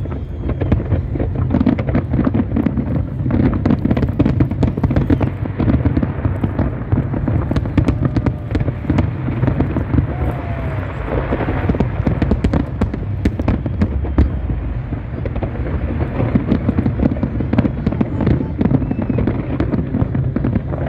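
Fireworks display: a continuous barrage of aerial shell bursts, many overlapping bangs and crackles a second over a steady low rumble, with no pause.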